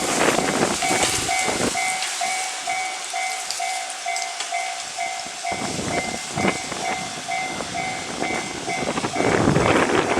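Japanese level crossing's electronic warning bell ringing in an even, repeating two-tone ding, over the rumble of a train on the Chuo Line that is loudest at the start and swells again near the end.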